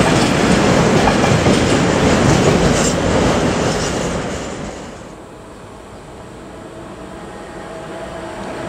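Tank wagons of a freight train rolling past, their wheels clattering steadily over the rails. About five seconds in the sound drops away, and an approaching SBB Cargo electric freight locomotive slowly grows louder near the end.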